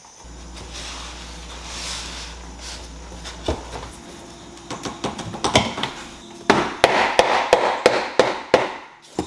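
A hammer knocking cork floor planks into place: scattered knocks, then a quick run of sharp taps, about three a second, in the second half, cut off suddenly near the end. A low steady hum runs under the first few seconds.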